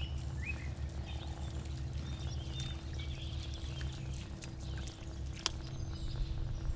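Birds chirping in short calls over a steady low rumble and hum, with a single sharp click about five and a half seconds in.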